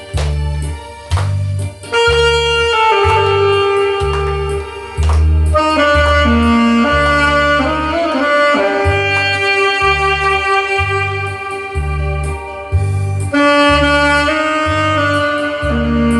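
Saxophone playing a slow, sustained melody over a backing track with a steady pulsing bass beat; the melody comes in about two seconds in.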